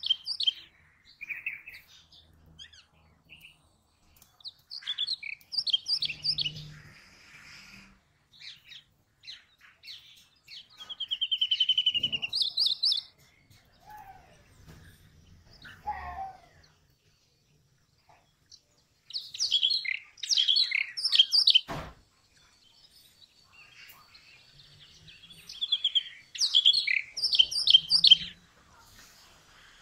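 Brown rock chats calling: clusters of short, high chirps and whistles at intervals, with a loud buzzy trill a little before the middle and a single sharp click later on.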